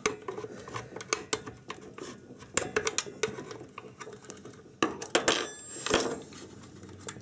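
14 mm open-end spanner clinking against the nut of a panel-mount fuse holder as it is turned loose, in irregular metallic clicks. A cluster of louder clinks comes about five to six seconds in.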